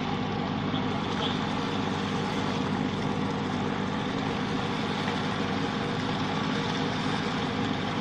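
A boat's engine running steadily: a constant, even drone that does not change.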